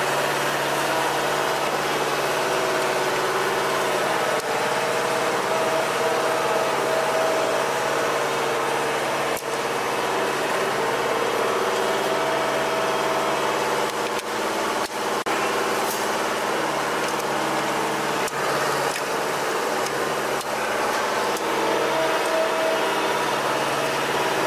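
An engine idling steadily, a constant drone with several pitched tones held throughout. A few sharp metallic clicks and knocks come through it.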